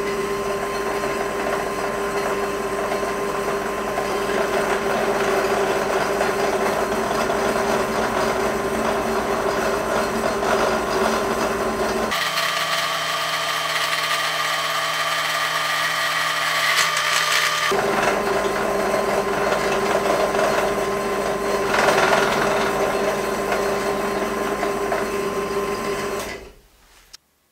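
Bench drill press running, its small twist drill bit cutting slowly into a thick metal block, with a steady motor hum. The tone shifts for a few seconds about halfway through, with brief squealing from the cutting bit now and then. The sound cuts off abruptly near the end.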